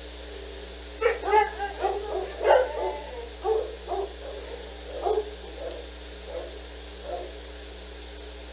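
A dog barking: a quick run of barks starting about a second in, then spacing out and fading away by about seven seconds.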